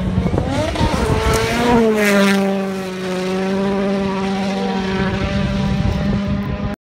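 Rally car passing at speed on a gravel stage, its engine note held high then dropping in pitch as it goes by, with many sharp cracks over it. The sound cuts off abruptly near the end.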